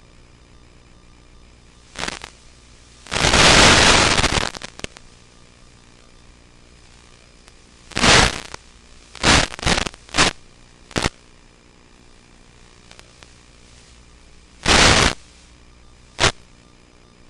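Bursts of loud hiss-like static from an analog FPV video receiver, about ten of them, the longest nearly two seconds, the rest short and clustered, over a faint steady hum. The static comes as the video link breaks up with range.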